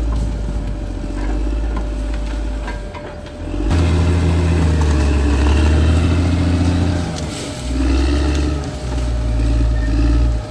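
Caterpillar D6R XL bulldozer's diesel engine working under load, its pitch and loudness rising and falling, with a sudden jump in loudness about four seconds in.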